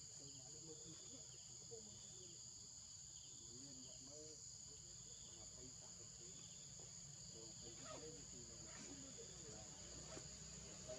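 Faint, steady high-pitched drone of forest insects, with faint low warbling sounds underneath.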